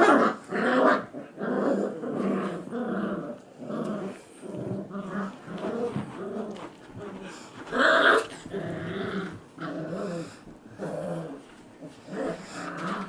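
Goldendoodle puppies about five weeks old crying and whining over and over in a run of short pitched calls, with louder cries at the start and about eight seconds in.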